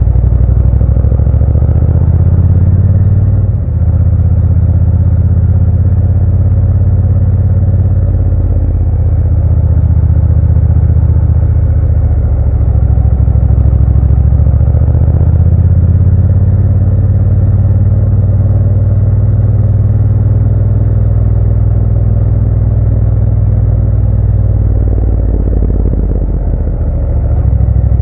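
Motorcycle engine running on the road, its pitch rising and falling with the throttle, with a brief drop about four seconds in and another near the end, like a gear change or easing off.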